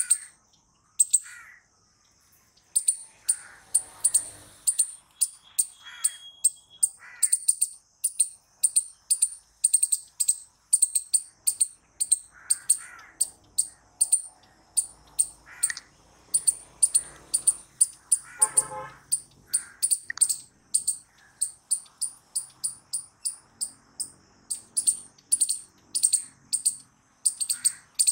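Striped palm squirrel giving a long run of sharp, high-pitched, bird-like chip calls, about three a second, with a few fainter, lower calls in between.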